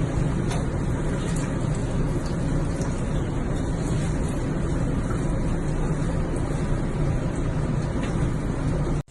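Loud, steady rumbling noise, heaviest in the low end, unchanging throughout and cutting off suddenly near the end.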